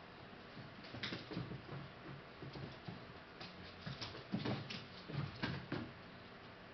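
Irregular light clicks, scuffles and rustles as a puppy tugs and paws at a curtain. The noise is busiest past the middle and stops about a second before the end.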